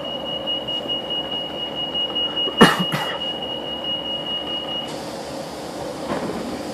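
Class 156 diesel multiple unit standing at a station, its diesel engine idling with a steady hum inside the carriage. A steady high-pitched tone sounds over it and stops about five seconds in, and a sharp clack comes about two and a half seconds in.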